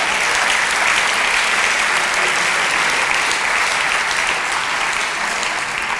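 Theatre audience applauding: a steady, dense wash of many people clapping.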